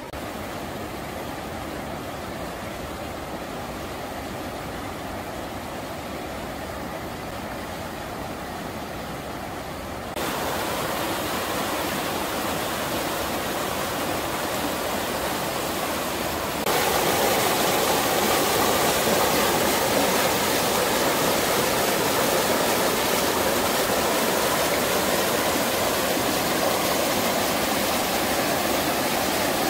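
River water rushing steadily through and over a line of stone stepping stones in a shallow rapid. It jumps louder suddenly twice, about a third of the way in and again a little past halfway.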